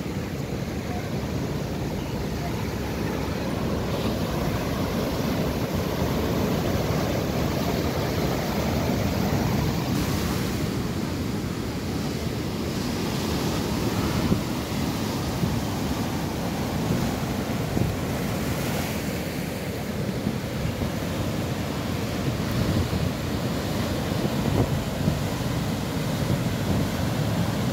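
Heavy surf of a rough sea breaking and foaming up the shore over rocks, a continuous rushing wash that swells and eases as the waves come in.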